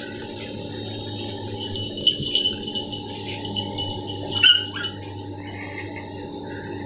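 Shih Tzu giving a short, high-pitched yap about four and a half seconds in, with a few quieter sounds before it, over a steady background hum.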